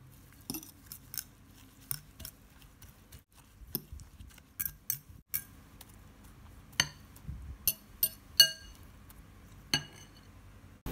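Metal fork clinking and scraping against a ceramic bowl while stirring chopped cha-om shoots into beaten egg. The taps come irregularly, and a run of sharper, ringing clinks falls in the second half.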